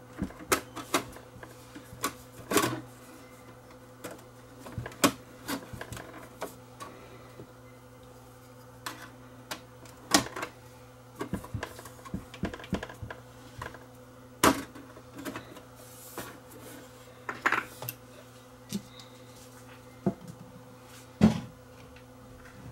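Irregular clicks and knocks of a reel-to-reel tape deck's metal top panel and small parts being handled and seated back in place during reassembly, over a faint steady hum.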